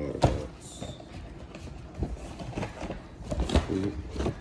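A run of knocks and clicks from things being handled, the loudest about a quarter second in, with a short high tone just under a second in.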